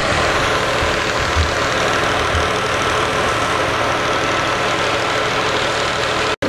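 A tractor-driven wheat thresher running steadily, giving a dense, even mechanical din with a faint steady whine. It cuts out for an instant near the end.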